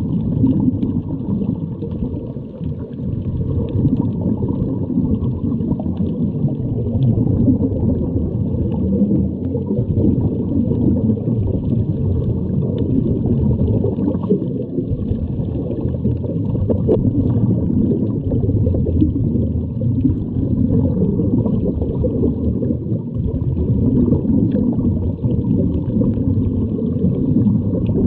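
Muffled, steady underwater noise with the gurgle of scuba divers' regulators and exhaled bubbles.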